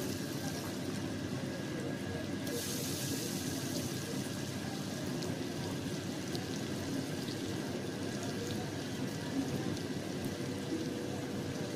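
Sliced onions and garlic paste frying in hot oil in a pot, sizzling steadily; the sizzle turns hissier about two and a half seconds in.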